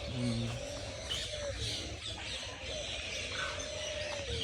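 Mixed birds chirping and twittering in an aviary, short high calls scattered throughout.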